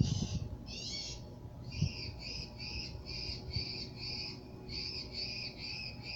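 A bird repeating a short, harsh call about three times a second, after two longer calls at the start. A steady low hum runs underneath.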